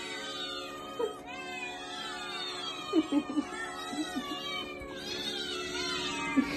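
A chorus of caged cats meowing over one another, many overlapping calls rising and falling throughout.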